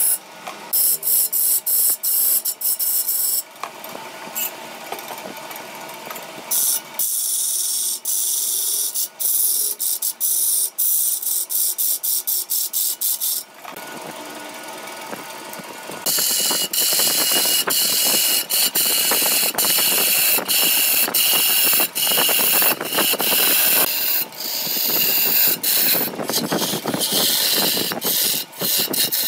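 A hand-held turning tool cutting a large block of root ebony spinning on a wood lathe: a harsh scraping hiss full of rapid clicks as shavings spray off. It eases off for a couple of seconds near the middle, then cuts harder and louder.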